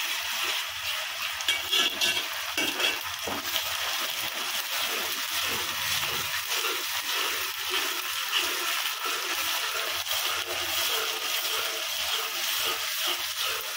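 Chopped onions and ginger-garlic paste sizzling steadily in hot oil in a pan, at the frying stage just after the paste goes in. A spoon stirs through the pan near the end.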